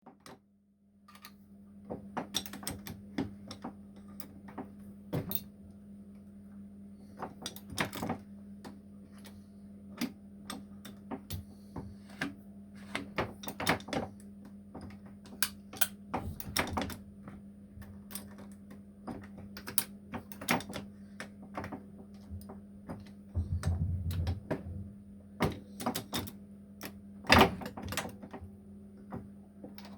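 Ponsness Warren 375 shotgun reloading press being worked by hand to load slugs: irregular metallic clicks and clunks from the press and its tooling, with a sharp, loud clack about 27 seconds in and a dull thud around 23 to 24 seconds, over a steady low hum.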